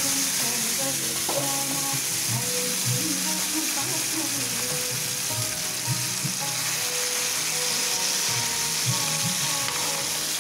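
Tomato pickle mixture with garlic cloves sizzling in hot gingelly (sesame) oil in a kadai, a steady high frying hiss.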